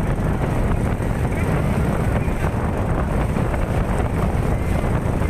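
Wind rumbling on the microphone over a steady outdoor din, with no distinct event standing out.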